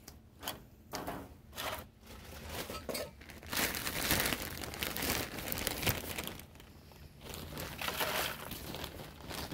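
A plastic bag of potting mix being handled, crinkling and rustling in irregular bursts, loudest in the middle of the stretch and again near the end.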